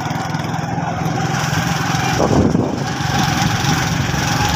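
Small engine running steadily at an even, pulsing pace, with a brief louder swell about two seconds in.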